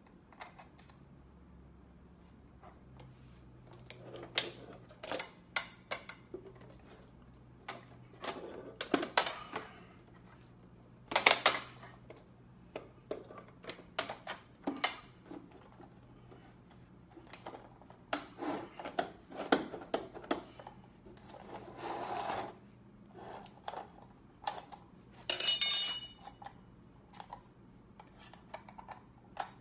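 Metal tubes and plastic frame parts of a dog rocking chair clicking, knocking and clattering as they are fitted together by hand, in scattered short bursts. Near the end a metal tube gives a sharp ringing clink.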